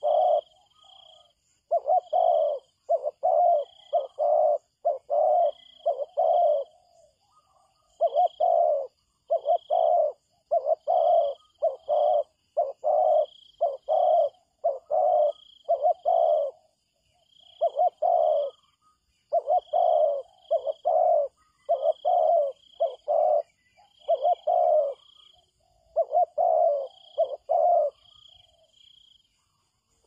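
Spotted dove cooing over and over in short phrases of a few low notes, with brief pauses between phrases. A thin, high chirp repeats faintly alongside.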